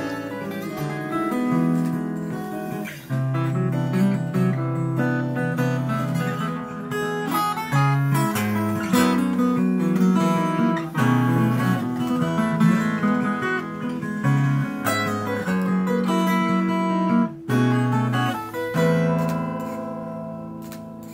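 Acoustic guitar music of strummed chords that change every second or so, fading out near the end.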